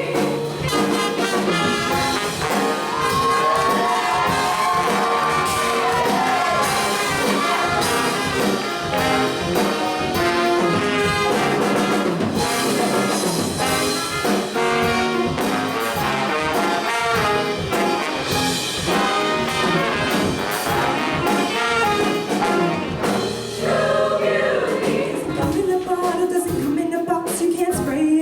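Instrumental break of a show choir's live accompaniment band, with brass (trumpets and trombones) playing over a steady beat.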